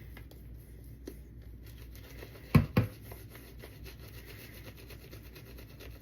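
Shaving brush swirling a thick, overloaded soap paste around a lathering bowl, heard as a low, steady rubbing. Two sharp knocks come close together about two and a half seconds in.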